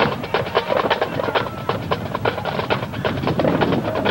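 Marching band playing, its drumline beating a fast run of sharp drum strokes, several a second.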